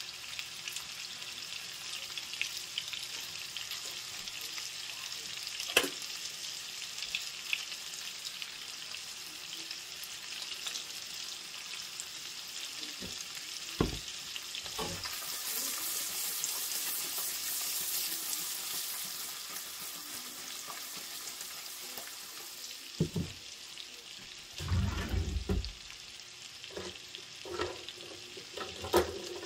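Zucchini, carrots and mushrooms sizzling steadily in a pan, with a few sharp clicks and several low knocks near the end.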